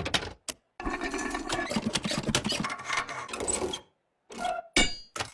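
Rapid mechanical clicking and rattling of metal fittings on a vintage car, such as a filler cap being twisted open. It is broken by a couple of abrupt drops to silence, with a sharp hit at the start and another near the end.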